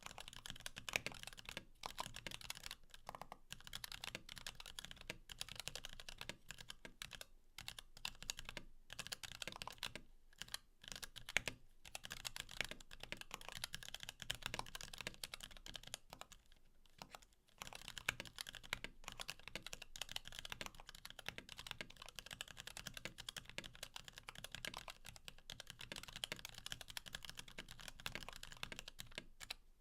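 Steady, fast typing on a close-miked Klippe mechanical keyboard with lubed Kailh Box Black linear switches, POM Cherry-profile keycaps, a carbon fiber plate and a Sorbothane-dampened case: a dense stream of keystroke clacks. The typing stops briefly a little past halfway, then resumes.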